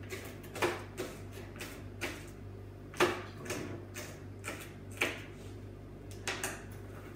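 Two kitchen knives chopping red pepper on plastic chopping boards: uneven sharp knocks of the blades meeting the boards, roughly two a second, the loudest about three seconds in.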